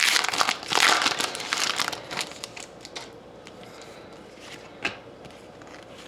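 Wrapper of a Panini hockey card pack being torn open and crinkled, loudest for the first two seconds, then quieter rustling as the cards are handled, with one light tap near the end.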